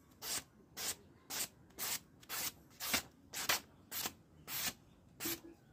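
A freshly sharpened steel knife blade, forged from a bearing race, slicing through a sheet of paper in about ten quick strokes, roughly two a second, each a short papery hiss. It is a sharpness test: the edge cuts the paper cleanly.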